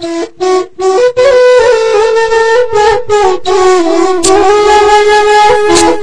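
Background music: a single melody line with many overtones, in short separated notes at first, then longer held notes about a second in, over a steady beat.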